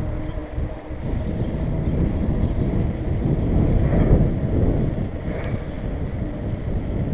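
Wind buffeting the microphone of a camera on a moving electric bicycle: an uneven, gusting rumble.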